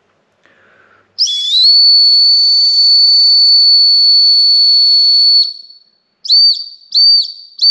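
Tesla Cyberwhistle, a small stainless-steel whistle, blown in one long, very high-pitched blast of about four seconds. Its pitch rises briefly at the start and then holds steady. Near the end come three short blasts at the same pitch.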